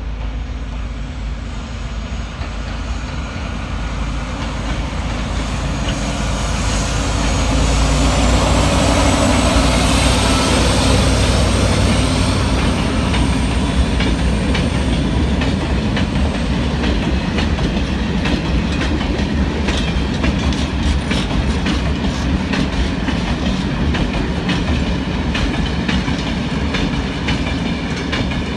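A freight train approaching and passing close by. It is loudest as the locomotive goes past, about eight to twelve seconds in, then the covered freight wagons roll by with a steady clickety-clack of wheels over the rail joints.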